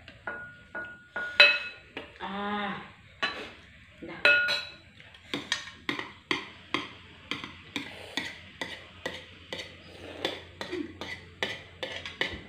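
Metal spoons and forks clinking and scraping against plates as two people eat, the strokes coming quickly, about two or three a second, through the second half. A short vocal sound is heard about two seconds in.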